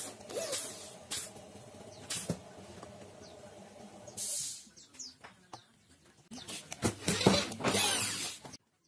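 Handheld electric drill boring into a laminated wooden board in several short bursts. The longest and loudest burst comes near the end and stops abruptly.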